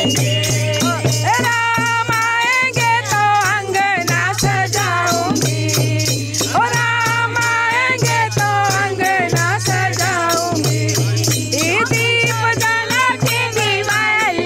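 Devotional bhajan kirtan: voices singing a melody to a steady beat of a dholak drum and clashing manjira hand cymbals, with hand claps.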